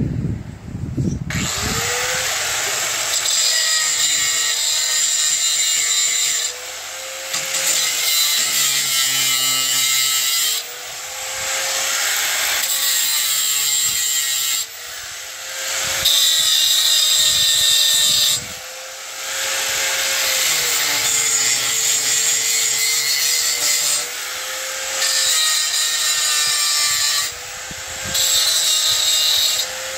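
Electric drill running under load in about seven bursts of a few seconds with short breaks, its motor pitch sagging and recovering as it bores into the barn door's metal hanger track for a new bolt hole.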